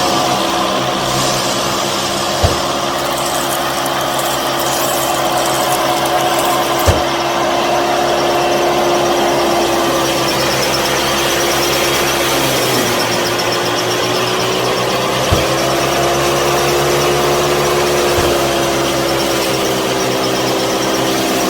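Small electric motor whirring steadily under load. Its pitch drops about twelve seconds in, then rises slightly and holds, and a few short clicks sound along the way.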